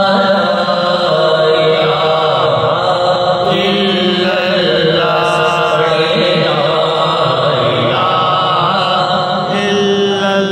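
A man chanting a kalam, an Urdu devotional poem, in long drawn-out melodic lines that waver and slide between notes, over a steady low hum.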